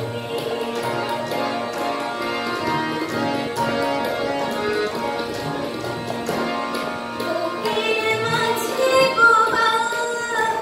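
A woman singing a song while playing held chords on a harmonium. Her voice rises and comes through more strongly in the last few seconds.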